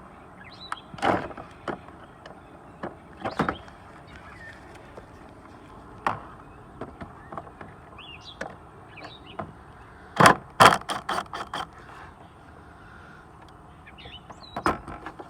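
Plastic engine-bay parts being handled by hand: scattered clicks and knocks, with a quick run of five or six clattering knocks about ten seconds in.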